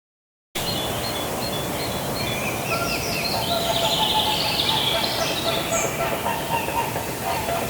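Outdoor nature ambience sound effect: a steady background noise with birds chirping over it, cutting in suddenly about half a second in.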